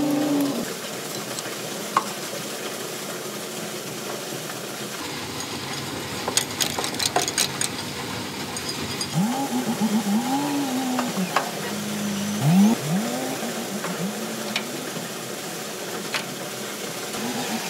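An engine revs up and down in short repeated surges over a steady background noise. A rapid run of sharp metal clinks comes about six to eight seconds in as steel tools work on the hydraulic cylinder rod.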